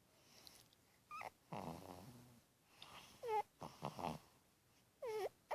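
Sleeping cat snoring: each breath brings a short, squeaky whistle that falls in pitch, followed by a low, raspy snore, about one breath every two seconds.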